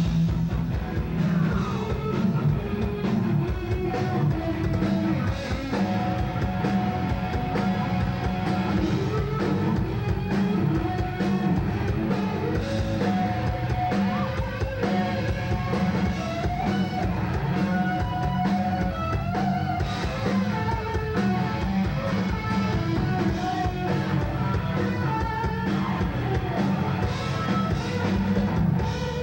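Rock band playing live: electric guitars over a drum kit, with a full, continuous sound.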